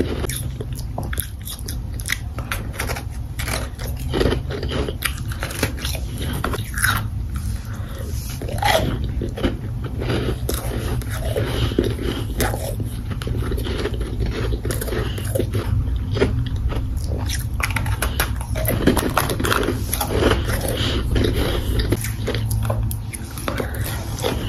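Person biting and chewing crunchy, powdery ice chunks: a continuous run of crisp crunches and crackles.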